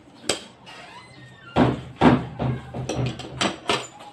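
A run of about seven sharp knocks and thuds against a tabletop, irregularly spaced over a couple of seconds, after a single click near the start, while pineapple is being cut and handled with a knife.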